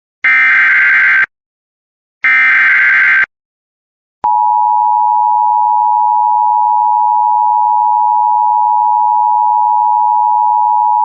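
Emergency Alert System tones. First come two loud, screechy digital data bursts, each about a second long with a second of silence between them: the SAME header that encodes the alert. Then, about four seconds in, the steady two-tone attention signal starts and holds, announcing an incoming severe thunderstorm warning.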